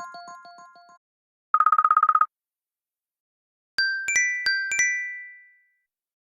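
Apple iPhone iOS 15 ringtones and alert tones playing in turn. A tone of repeated electronic notes fades out. A short rapid buzzing tone follows, then a quick run of about five chime notes that ring out and die away.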